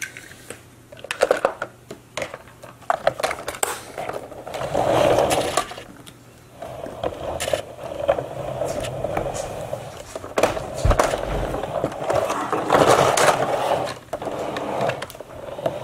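Clicks and scrapes of die-cast toy cars and a plastic toy car-hauler case being handled, then a steady scraping rumble for several seconds.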